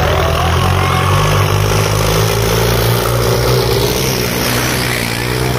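Diesel tractor engines running hard as they pull through soft ploughed mud, a loud steady low engine drone.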